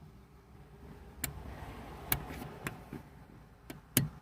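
About five sharp plastic clicks spread over a few seconds, the loudest near the end, with faint rustling between them: a car dome light being handled and clicked.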